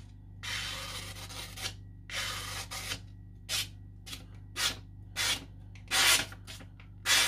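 A small petty knife's edge being stroked across a whetstone with a gritty, rasping scrape. There are two longer strokes, then about six short, quick ones as the edge is finished.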